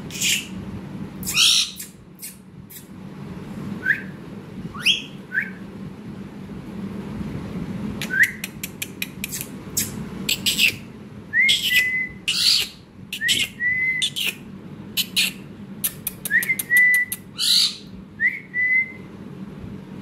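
Indian ringneck parakeet giving short rising whistles, several held briefly on one note, among many sharp clicks and taps as it pecks at a bowl held up to its beak.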